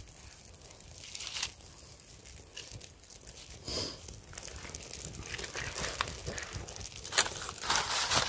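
Small campfire of dry twigs and kindling crackling as it catches, mixed with the rustle and snap of dry twigs handled at the fire. The crackling grows denser and louder in the second half, with a few sharp pops near the end.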